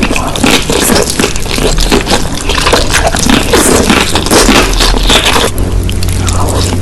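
Close-miked eating sounds: food being chewed and crunched, with wet, squishy mouth noises and irregular crackling. About five and a half seconds in the crunching thins out.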